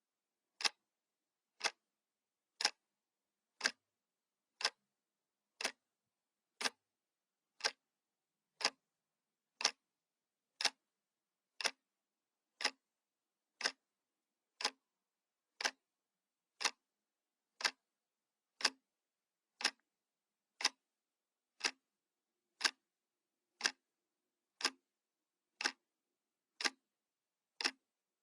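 Analog clock ticking, one sharp click each second, with silence between the ticks.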